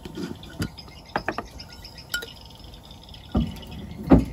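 Light clinks and taps of kitchen utensils against dishes, several short ones in the first half, then two heavier knocks near the end, the last the loudest.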